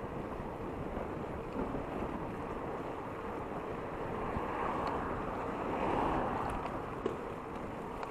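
Wind rushing over the microphone, with road noise from a moving Carrera Vulcan electric bike. The rush swells louder for a couple of seconds in the second half.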